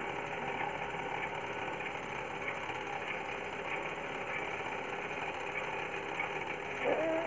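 Steady mechanical hum of a running electric pedestal fan, with a short rising voice-like sound near the end.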